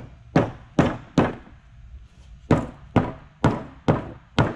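Rubber mallet striking the sides of an HDPE plastic mold to knock a cured epoxy-and-apple-wood casting loose: about nine sharp knocks, four and then five, roughly two a second, with a pause of over a second between the runs.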